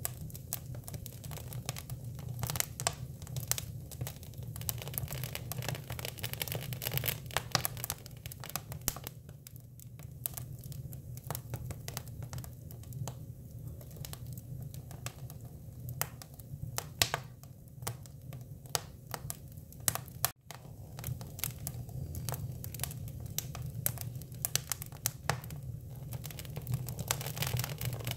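Hinoki (Japanese cypress) wood burning: the fire crackles with frequent, irregular sharp pops and snaps over a steady low hum. The sound cuts out for an instant about twenty seconds in.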